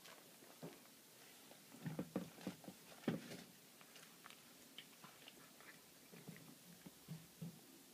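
Domestic cat chewing on a baby rabbit's carcass and crunching its bones: faint, irregular crunches and clicks, busiest about two to three and a half seconds in.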